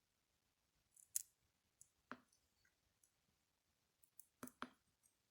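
A few faint, sharp clicks of a prying tool working between a smartwatch's rear glass and its wireless charging coil: one a little after the start, one around two seconds in, and a quick pair near the end.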